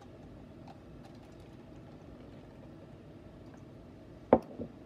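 Water poured faintly from a glass measuring cup into a plastic cup, then the glass cup set down on the table with a sharp knock about four seconds in, followed by a lighter tap.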